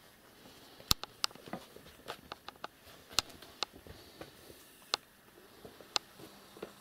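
Scattered sharp clicks and light scuffling taps from kittens play-fighting on a woven floor mat. A handful of louder clicks stand out among the quieter taps.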